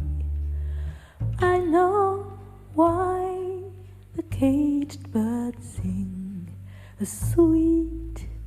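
Live jazz quintet playing: double bass notes underneath a melodic lead line in short phrases, each note scooping up into pitch.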